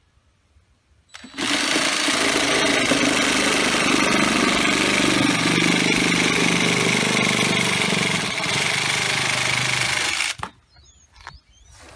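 Electric drill driving a sabre-saw (reciprocating saw) adapter, the blade stroking back and forth with a steady mechanical rattle. It starts about a second in, runs for about nine seconds, and stops suddenly near the end.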